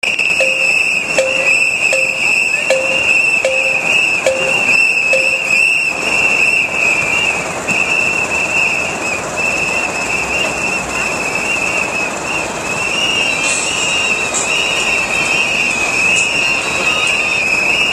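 Many whistles blown together in a steady, shrill, wavering chorus. During the first six seconds a short lower note repeats about every three quarters of a second.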